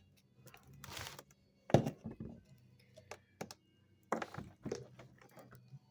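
A few scattered knocks and taps of objects being handled and set down on a hard surface, the loudest a sharp knock a little under two seconds in, over a faint low hum.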